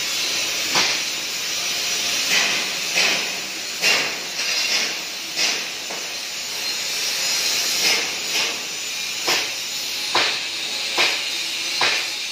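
DC TIG welding arc from a KorWeld DC TIG 350A on 16 mm stainless steel: a steady hiss, broken by short louder pulses at irregular spacing, roughly once a second.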